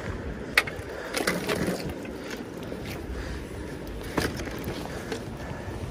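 Scattered sharp metal knocks and a short scraping clatter, several close together about a second in, over a low steady rumble: a bicycle being hauled up out of the river.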